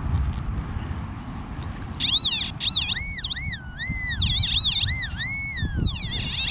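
Metal detector audio tone repeatedly rising and falling in pitch, a siren-like warble, as it sounds off on a target, starting about two seconds in. Before that there is only low rumbling handling noise.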